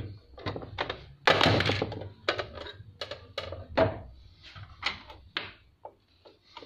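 Plastic knocks, clicks and a longer scrape as a portable sewing machine is tilted on the bench and the cover is slid off its free arm to bare the bobbin hook. The scrape about a second and a half in is the loudest.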